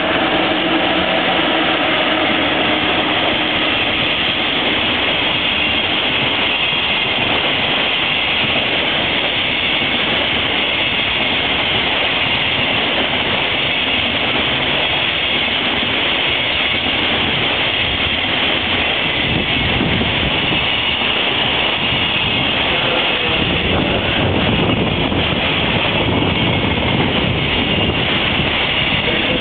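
Container freight train rolling past, a steady noise of wagon wheels on the rails.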